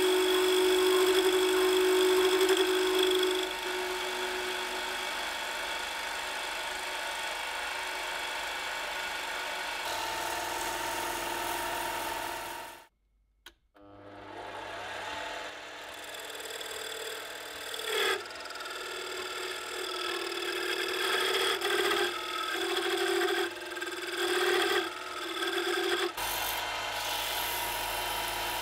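Metal lathe running while a turning tool cuts a spinning wooden disc, loudest in the first few seconds, then in short irregular cutting passes after a brief break. Near the end it changes to sandpaper held against the spinning disc's edge.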